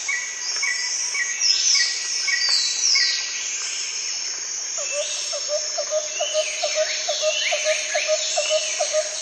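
Birds and insects chirping: repeated short chirps and falling whistled calls, joined about five seconds in by a quick low chirping about three times a second.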